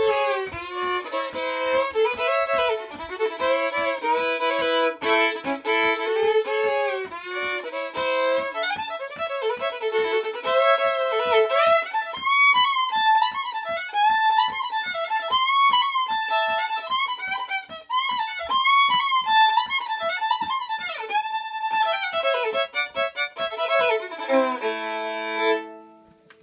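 Solo fiddle playing a tune, moving up to a higher register about halfway through and ending on a held double stop.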